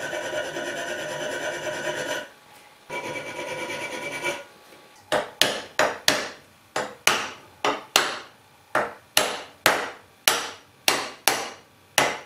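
Two long strokes of a file scraping along the edge of a steel plate held in a vise, the steel ringing as it is filed. Then a small hammer taps the steel edge about fifteen times, roughly twice a second, each blow ringing briefly.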